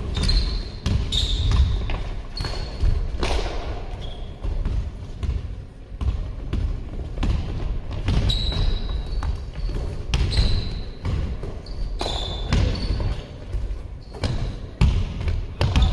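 A basketball bouncing on a sports hall floor, many irregular thuds, with short high squeaks of sneakers on the court several times, all echoing in the large hall.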